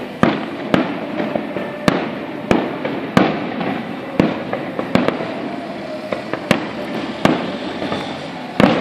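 Aerial firework shells bursting: a string of sharp bangs, about one a second, over a continuous rumble of echoing reports.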